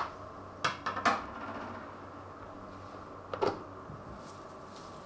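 A few short knocks and clatters of cookware and utensils being handled, the loudest about a second in and another a little past three seconds, over a faint steady hum.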